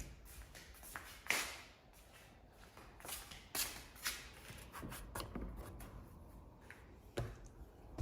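Quiet shuffling and scattered soft knocks and taps, irregularly spaced, like someone moving about and handling things.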